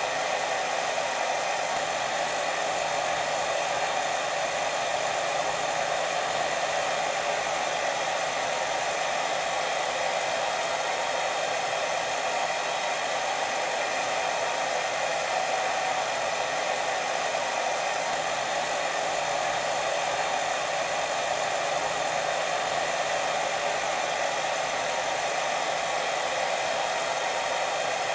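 Steady white noise for sleep: an even, unchanging hiss with a fuller band in the middle range.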